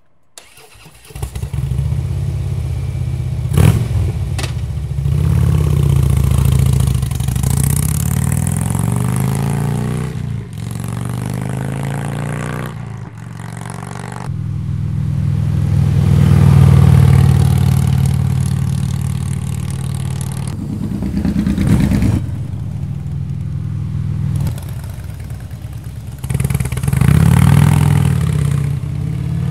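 Harley-Davidson touring bagger's V-twin running through a Crusher Power Cell exhaust with Maverick 4 slip-on mufflers. It comes in sharply about a second in, then revs, accelerates and passes by, its pitch rising and falling, in several shots that cut abruptly from one to the next.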